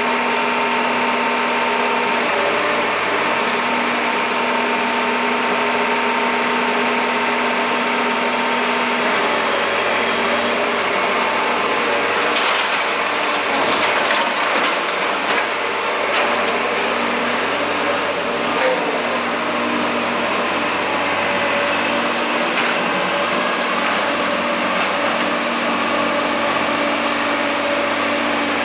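Caterpillar E240B excavator's diesel engine and hydraulics running steadily under load. The pitch shifts about a third of the way in, and a few clanks come around the middle.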